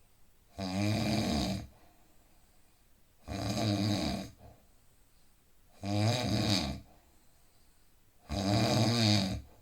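A man snoring in deep sleep: four snores, each about a second long, coming evenly about every two and a half seconds, with near quiet between.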